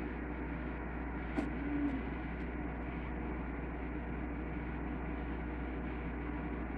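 Microwave oven running with a steady hum, and a few short crackles about one and a half to two and a half seconds in from the pappad heating inside.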